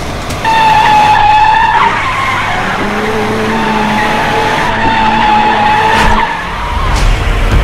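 Tyres of an old open jeep screeching as it skids and pulls away, in two long squeals over a low engine rumble.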